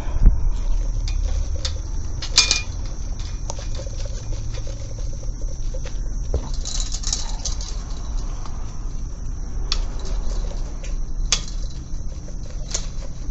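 Low rumble and rustling from handling and movement against a body-worn camera's microphone, with scattered clicks and taps.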